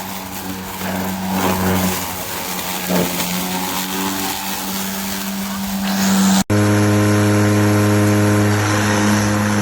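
Battery-powered electric lawn mower running with a steady motor and blade hum over the rush of air and grass. About six seconds in it cuts off abruptly and another recording of a similar, slightly louder running hum takes over.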